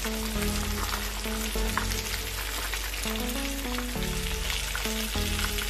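Battered fish pieces sizzling in hot oil in a shallow frying pan, a dense, steady hiss. Background music of low held notes plays underneath.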